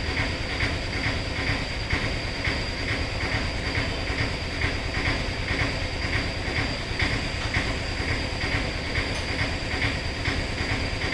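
Steady machinery noise from a neighbouring autorickshaw repair workshop: a low rumble with a regular pulse a little over twice a second and a steady high whine.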